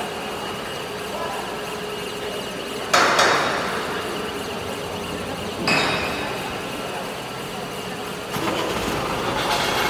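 Factory workshop din with a steady hum, broken by two sharp metallic clanks that ring out, about three and about five and a half seconds in. A louder rushing noise sets in near the end.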